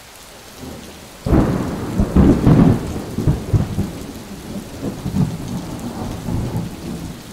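Rain falling, with a sudden clap of thunder about a second in that rumbles on and slowly fades.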